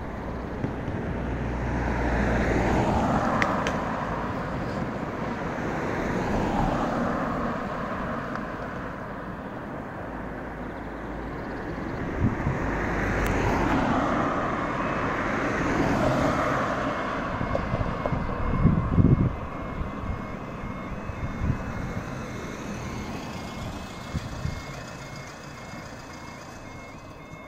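Cars driving over a level crossing, with engine and tyre noise swelling and fading as each one passes, and a short cluster of thuds about two-thirds of the way in. In the later part the crossing's electronic warning alarm starts up, a repeating high two-tone sound, as the amber and then red lights come on before the barriers lower.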